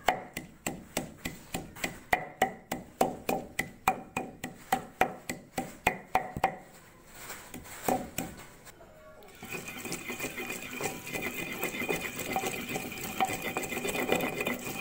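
Wooden pestle pounding mint leaves in a kundi mortar, a regular knock about three times a second, giving way after a short pause to a steadier scraping grind as the leaves are worked into a chutney paste.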